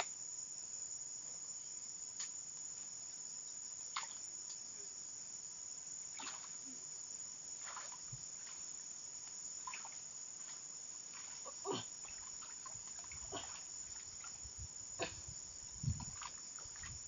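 Steady high-pitched chorus of insects, crickets or the like, in tropical forest, with scattered short knocks and crackles from handling at the stream's edge and a few louder thumps near the end.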